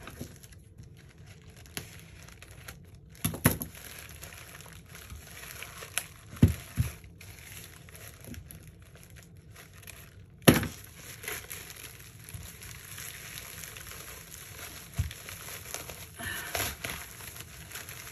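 Plastic bag and packing tape crinkling and rustling as a taped package is handled and cut open with scissors, with a few sharp clicks and knocks along the way, the loudest about ten seconds in.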